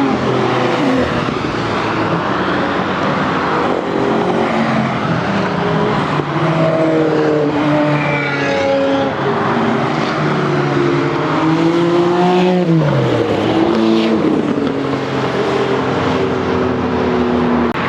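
Several high-performance supercar engines running on a racing circuit, overlapping as they rev, change gear and pass. About twelve and a half seconds in, one loud engine drops sharply in pitch as it goes by.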